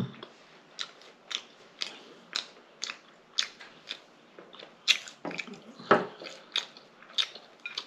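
Close-miked chewing with lip smacking: short wet mouth clicks about twice a second, a few of them sharper.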